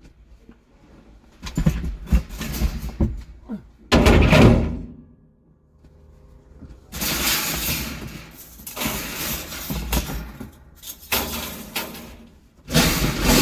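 Scrap metal being unloaded and tossed into scrapyard bins: irregular clattering and banging, with a loud bang about four seconds in, followed by several seconds of rough rattling and scraping noise.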